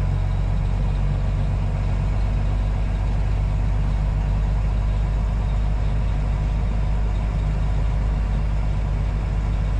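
Semi-truck's diesel engine running steadily as the truck drives, heard inside the cab as a constant low drone, with an even hiss of road and wind noise over it.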